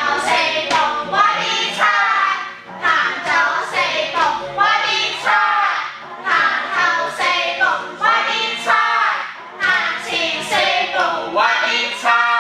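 Voices singing a pop song over backing music with a steady beat.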